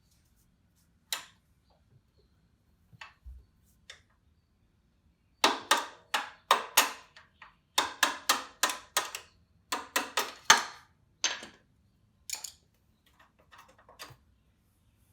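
Hammer tapping out an ATV's rear shock mounting bolt: a few single taps, then a quick run of sharp blows, about two or three a second, from about five seconds in, tailing off into lighter taps.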